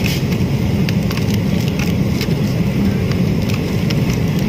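Steady low drone of an airliner cabin in flight, with scattered crinkling and crackling as the foil lid of an in-flight meal container is peeled off.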